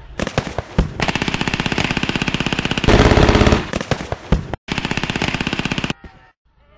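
Machine gun firing blanks in rapid automatic bursts. A few scattered shots come first, then one long burst of about three and a half seconds. After a brief break, another burst of about a second follows.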